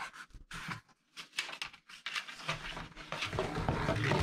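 Cardboard shipping box being handled: flaps and packaging rustling and scraping, with light taps, as a plastic display board is lifted out. The rustling turns denser and continuous from about two and a half seconds in.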